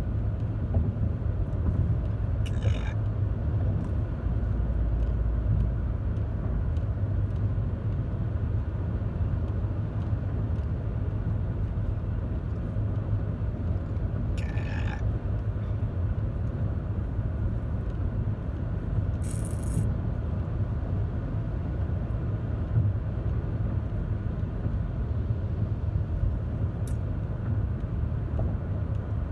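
Steady low rumble of a car driving, heard from inside the cabin, with three brief rushes of higher-pitched noise along the way.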